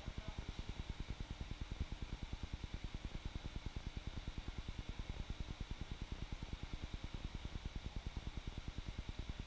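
A steady low hum with a rapid, even throb, as from a machine or fan running, with a faint hiss above it.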